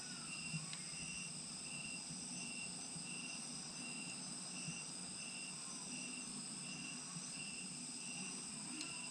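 Crickets and other insects chirping steadily, one of them in short even pulses about two and a half times a second, with an occasional faint crackle from a wood fire.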